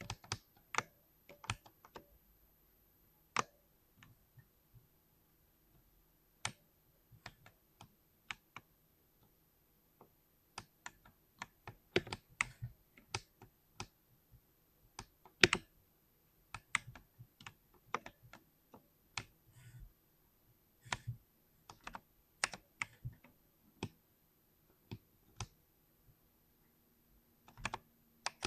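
Mechanical keyboard with linear switches being typed on in irregular keystrokes: single presses and short runs of clicks, separated by pauses.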